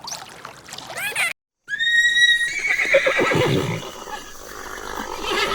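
Short high chirps, then after a break a farm animal's loud call: a high held note that drops into a lower, shaking sound lasting about two seconds.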